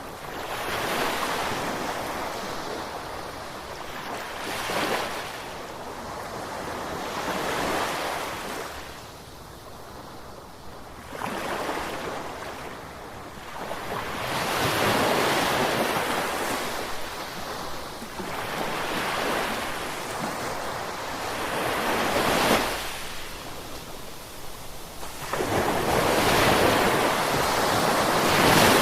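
Ocean surf: waves breaking and washing in, one swell after another every three to four seconds, each rising to a hiss and then ebbing.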